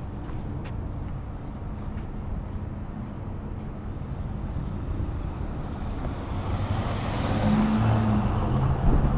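City street traffic: a steady low rumble of engines, with a vehicle passing close in the last few seconds, its engine and tyre noise swelling.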